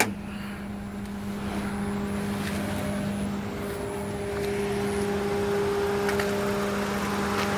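Honda Brio RS car running while parked: a steady hum that slowly grows louder, with a few faint clicks near the end.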